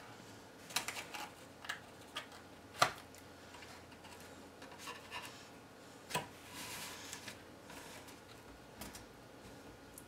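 Cardstock pieces being handled and pressed down by hand as they are glued: scattered light taps and rubbing, with a sharper tap a bit under three seconds in and a short rustle about six seconds in.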